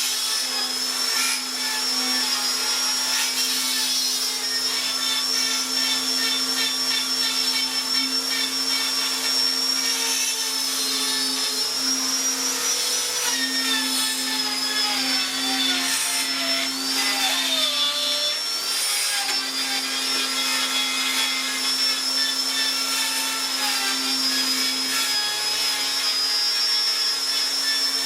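Electric power tool motor running continuously, holding a steady whine that dips briefly in pitch a few times.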